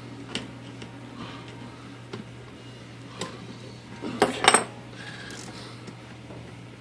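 Small metal parts and tools clinking and tapping against a typewriter's steel frame, with a quick cluster of sharper clinks about four seconds in. A steady low hum runs underneath.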